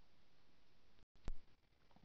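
Faint steady room hiss, cut off by a brief dead dropout about halfway through, followed by a single short sharp click.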